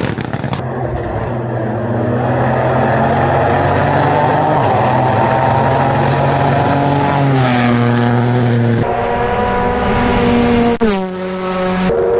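Rally car engines running hard at high revs: the pitch climbs slowly, then drops as the throttle lifts or a gear changes. The sound changes abruptly a few times, with another sharp drop in pitch near the end.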